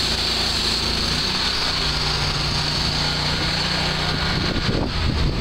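Mobile hot-water pressure washer running at 3000 PSI and 8 gallons a minute through a single gun: a steady engine and pump drone under the hiss of the high-pressure jet striking wet pavement.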